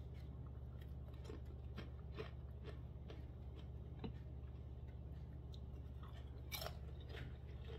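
Faint crunching of a person chewing almond-flour tortilla chips with salsa: scattered small crunches over a steady low hum.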